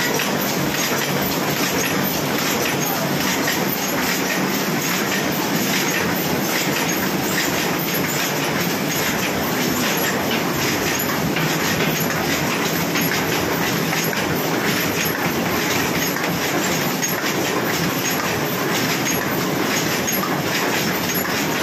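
High-speed paper cup forming machine running: a steady, fast mechanical clatter from its turret and forming stations.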